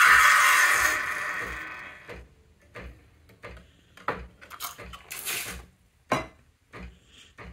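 Ascaso Steel Duo steam wand hissing into a stainless pitcher of water, dying away over about two seconds as the steam knob is closed. Then come scattered light clicks and knocks of the stainless pitcher being handled and lifted off the wand.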